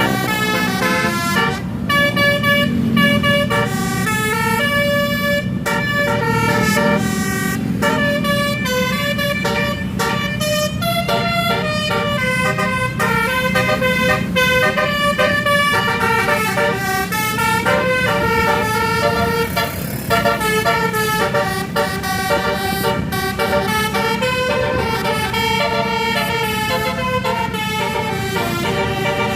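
Tour bus's basuri telolet horn, a multi-tone horn, playing a running tune of short changing notes throughout, over the steady low hum of the bus engine.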